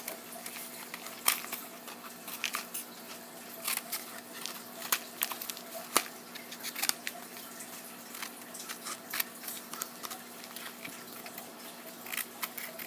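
Scissors snipping into the end of a cardboard tube, a run of short irregular cuts with handling rustles in between, over a faint steady hum.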